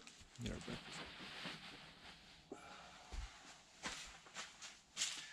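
Faint rustling and a few soft thumps, like someone moving about and stepping inside a tent.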